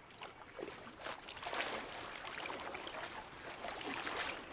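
Splashing of feet wading through a shallow, rocky stream, over the sound of the running water; it gets louder about a second in.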